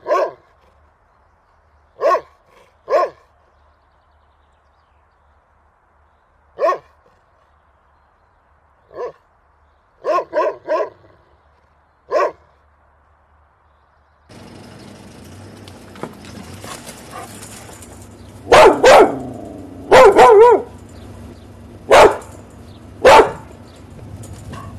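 Large dog barking in single barks a few seconds apart, sometimes three in quick succession. About fourteen seconds in, a second large dog takes over, barking louder over steady background noise.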